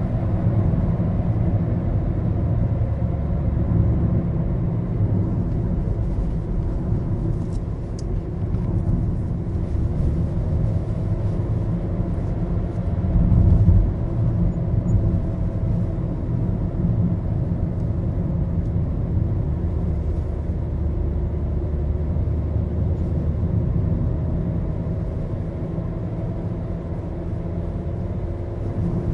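Car interior sound: a steady low rumble of engine and road noise heard inside the cabin, with a brief louder swell about 13 seconds in.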